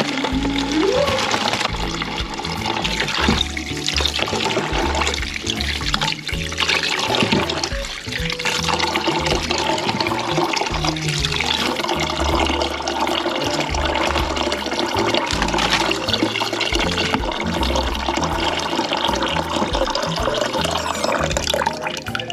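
Tap water running steadily into a sink while raw shrimp are washed, over background music with a heavy stepping bass line.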